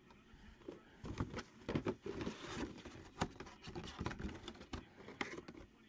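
Handling noise: a clear plastic mini-helmet display cube and a cardboard box being handled, giving an irregular run of light clicks, taps and soft rustles.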